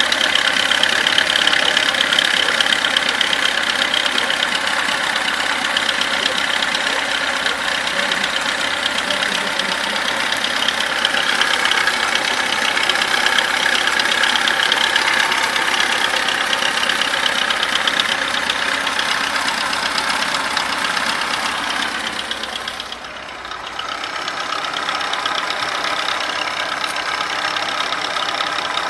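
VAZ-21011 four-cylinder engine running with a fast, even knock in it: the engine knock the owner is recording. The sound dips briefly about 23 seconds in, then comes back to the same steady running.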